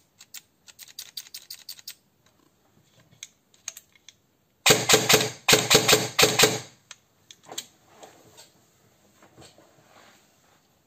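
VFC HK416 airsoft electric gun (AEG) gearbox cycling: a short run of quicker, quieter clicks, then near the middle three loud rapid full-auto bursts, each well under a second, followed by a few faint ticks.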